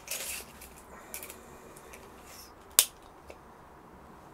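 Handling noises from a knife and a measuring tool on a tabletop: a short rustle at the start, a few light clicks, and one sharp click just before three seconds in.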